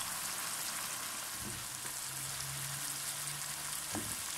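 Tomato-and-spice masala sizzling in hot oil in a nonstick wok as cubes of peeled brinjal (eggplant) are tipped in, with a few light knocks near the end.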